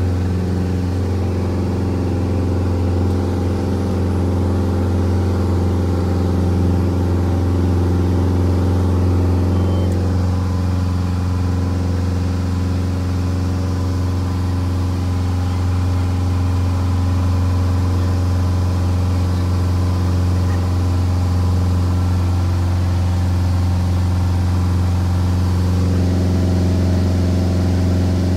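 Glasair I RG light aircraft's piston engine and propeller running at takeoff and climb power, a steady low drone heard inside the cockpit, with a slight change in tone about ten seconds in.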